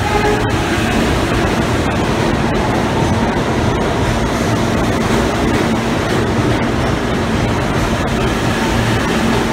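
R160B Siemens subway cars of an N train pulling out of the station and running past close by: a loud, steady rumble and rush of steel wheels on the rails.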